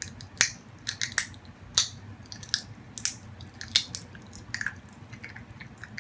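Japanese popping candy crackling in a person's mouth as the carbonated granules burst: irregular sharp little pops, a few every second.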